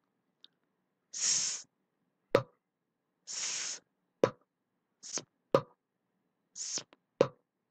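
A voice sounding out the phonemes /s/ and /p/ for blending: a hissed "sss" followed by a popped "p", four times. The first two hisses are drawn out and the last two short.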